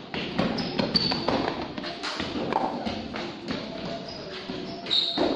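Quick running footsteps slapping and tapping on a hard tiled floor, mixed with irregular taps and thuds as plastic cones are set down.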